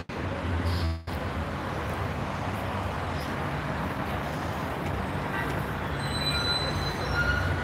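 Steady outdoor hum of road traffic, which drops out briefly twice within the first second. A few faint, short high tones come through about six to seven seconds in.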